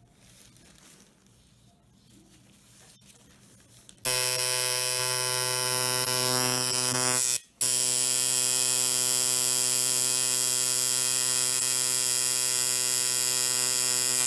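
Tattoo machine buzzing steadily as its needle inks a script name into forearm skin. It starts about four seconds in, stops for a split second a little past halfway, then runs on.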